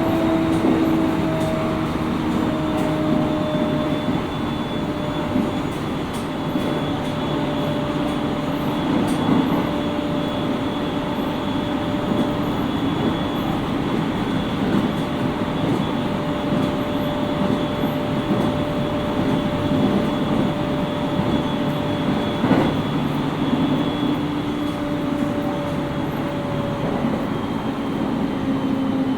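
Running sound of a JR East 701 series 5500-subseries electric train, heard from inside the car: steady wheel-and-rail rumble under the even whine of the traction motors and gears, which drifts slightly in pitch as speed varies. A single sharp knock about three quarters of the way through.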